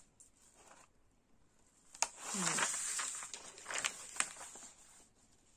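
Crackling rustle of a diamond painting canvas, its plastic cover film and paper, as it is handled and turned over, with a few sharp crackles; it starts about two seconds in and lasts about two and a half seconds.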